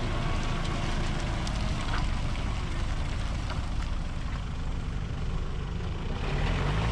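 Mitsubishi Shogun Sport's 2.5-litre diesel engine running as the SUV creeps through deep mud on street tyres, with its revs rising near the end.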